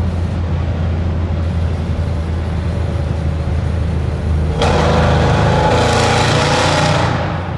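Jeep Grand Cherokee Trackhawk's supercharged V8 through an open Gthaus valved cat-back exhaust, heard from inside the cabin: a steady low drone while cruising. About four and a half seconds in, the engine is opened up and the exhaust suddenly grows much louder and brighter for two or three seconds, then eases off just before the end.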